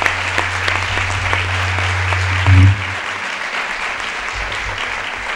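Audience applauding steadily, with a brief low thump about halfway through.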